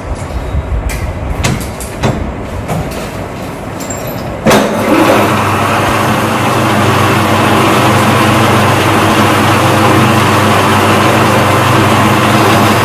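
Small bench metal lathe: a few clicks and knocks as it is handled, then about four and a half seconds in its motor and spindle start up and run with a steady hum to the end.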